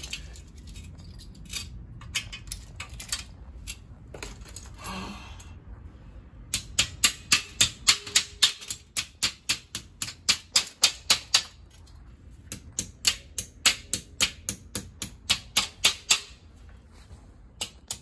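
Knipex pliers turning the nut on a wall-bracket anchor bolt: metal clicking at about four a second in two long runs, each click as the jaws grip or slip on the nut. A few scattered clicks come before them.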